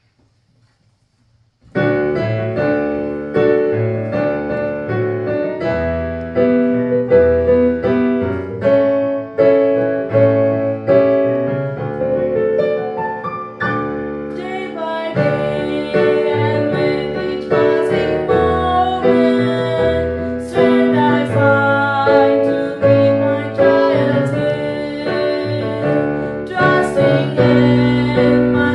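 After a short pause, a Casio digital piano starts playing a hymn. Partway through, a girl's voice joins, singing the hymn to the piano accompaniment.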